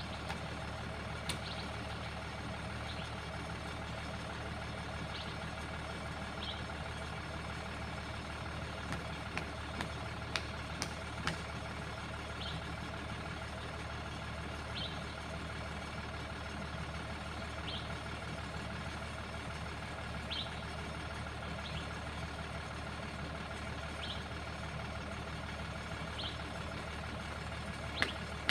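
Excavator engine running steadily, with short high-pitched chirps every two seconds or so and a few sharp knocks about a third of the way in and again near the end.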